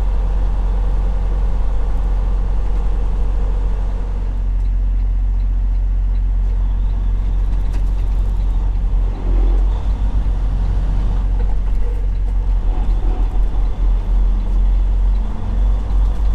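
Freightliner Cascadia semi-truck's diesel engine and road noise heard from inside the cab: a steady low rumble. About halfway through, the rumble becomes uneven and pulsing as the truck works through an intersection and turns.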